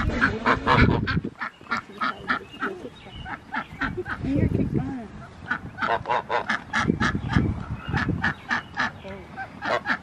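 Domestic waterfowl calling over and over, short calls in quick runs of about three or four a second, with a pause in the middle.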